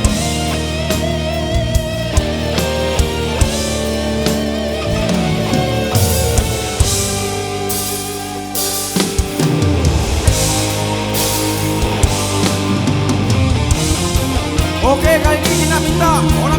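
Rock band playing live, an instrumental passage of electric guitar over bass and drum kit, with cymbals crashing from about six seconds in.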